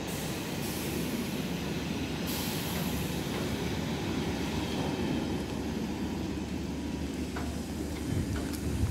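Empty double-deck car-transporter freight wagons rolling past at a steady speed, a continuous rumble of wheels on rails. Near the end, wind buffets the microphone.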